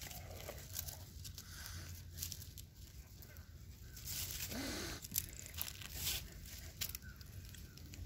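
Dry leaf litter and twigs crackling and rustling as a kitten and another animal move and paw about in the undergrowth, with a longer hissing noise about four seconds in.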